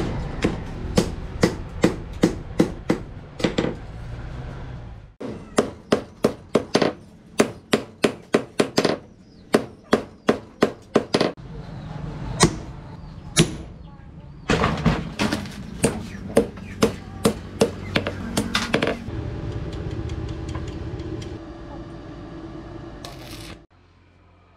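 Hand hammer striking red-hot rebar on a steel post anvil: sharp ringing metal blows in runs of about two to three a second, with short pauses between runs. Near the end the blows stop and a steady hum takes over.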